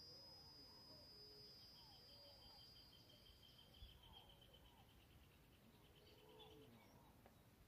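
Near silence with faint rural ambience: a steady high insect whine that stops about four seconds in, a fast insect trill, and soft distant bird chirps.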